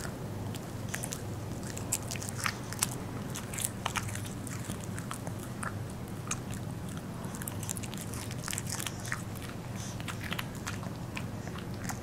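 Small Maltese–Yorkshire terrier mix eating a sausage: irregular wet smacks and biting clicks as it works the piece in its mouth, barely chewing it.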